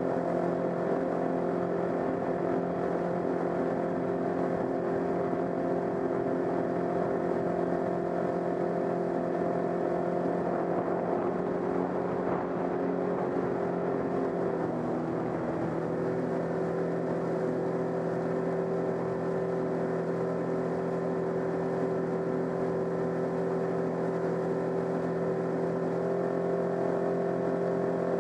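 Sea-Doo GTX 155 jet ski running steadily at speed, its engine note mixed with the rush of water from the jet wake. The engine pitch drops slightly about halfway through, then holds steady.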